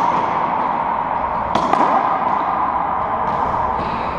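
Racquetball play in an enclosed court: one sharp crack of the ball off racquet or wall about a second and a half in, ringing off the walls, followed by a few fainter taps, over a steady background hum.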